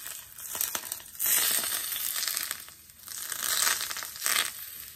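Hot cooking oil sizzling and crackling as it is poured over steamed snapper topped with cilantro and scallions. It comes in several surges and dies away near the end.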